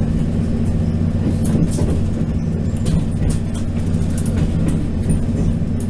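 Inside a DR2900/3000 diesel railcar running at speed: the diesel engine's steady drone, with scattered sharp clicks and rattles from the wheels and car body.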